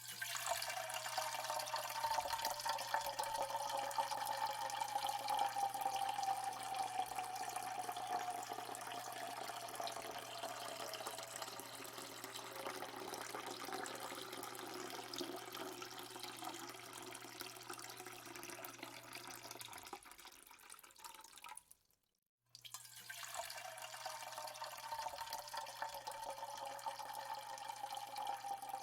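Water poured in a steady stream into a surgical tray, splashing with a resonant tone that slowly sinks in pitch. The pour dies away about 20 seconds in and, after a brief silence, starts again.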